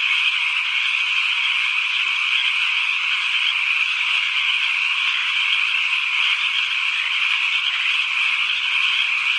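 Dense chorus of many frogs calling at once, a steady, high-pitched din in which no single call stands out.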